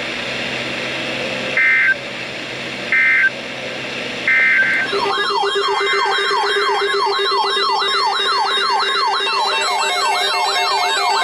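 Three short bursts of two-tone EAS digital data code, the end-of-message signal after a warning. About five seconds in, an electronic alarm starts: a siren-like tone sweeping up and down about twice a second over a steady lower tone.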